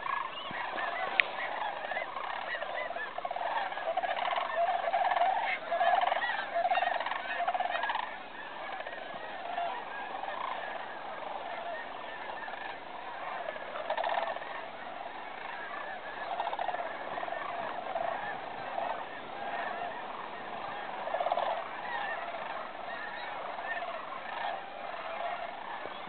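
A large flock of sandhill cranes calling as they fly in to roost: a dense chorus of many overlapping calls that swells and fades but never stops.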